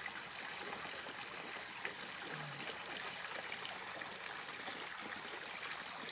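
Small mountain stream running over rocks: a steady rush of flowing water.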